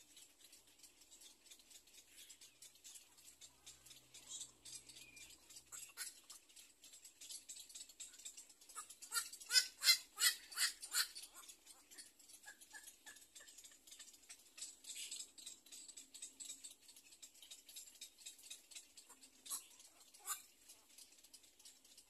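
Egret chicks in the nest giving quick clicking chatter, with a louder run of rapid calls, about five a second, around ten seconds in and two more calls near the end.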